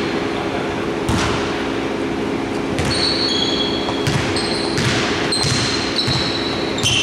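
A basketball dribbled on a hardwood court, the bounces ringing in a large hall. Short high sneaker squeaks on the wooden floor come several times in the second half.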